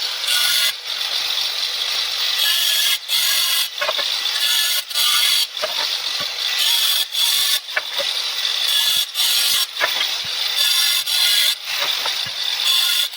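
Makita GA023G brushless cordless angle grinder cutting through roof tiles: a loud, high motor whine with a grinding rasp, broken by brief dips every second or two as the disc goes in and out of the cut.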